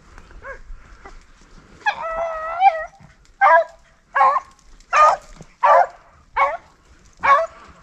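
A rabbit hound baying while hunting a rabbit: one long, wavering bawl about two seconds in, then a steady string of short barks, roughly one every 0.7 seconds.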